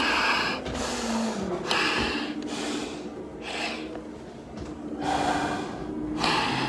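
Heavy, rhythmic breathing through a firefighter's full SCBA face mask, each breath hissing through the mask about once a second: he is out of breath from a long stair climb.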